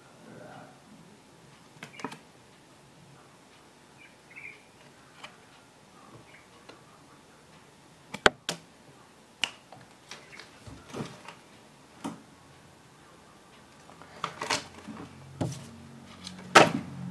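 Scattered small clicks, taps and rustles of paper SIM-card packs and cards being handled, with sharper clicks about eight seconds in and louder ones near the end.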